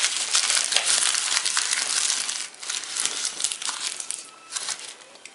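Paper sweet wrapper crinkling as it is handled: dense crackling for the first two and a half seconds, then scattered crackles that die away near the end.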